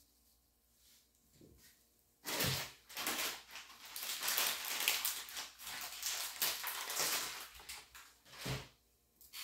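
Several seconds of uneven rustling and crinkling handling noise, with a sharp knock near the end.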